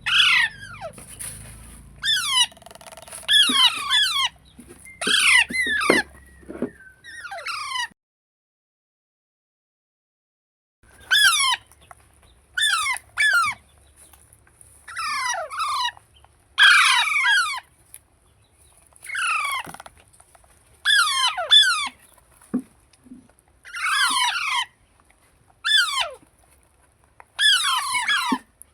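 Indian ringneck parakeet chicks calling: short, loud screeching calls, each falling in pitch, often in quick runs of two or three, with pauses between. The sound cuts out completely for about three seconds, about eight seconds in.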